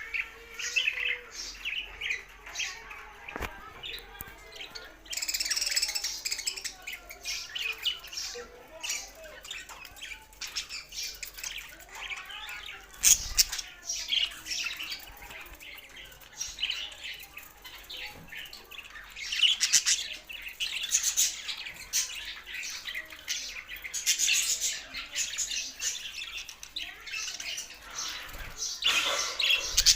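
Budgerigars chattering and squawking, a dense, unbroken stream of short chirps and harsh calls, with one sharp tap about halfway through.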